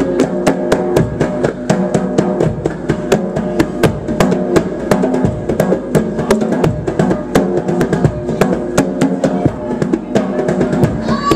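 Live band music led by a fast hand-drum solo: rapid, dense strikes on a pair of drums over sustained pitched notes from the band.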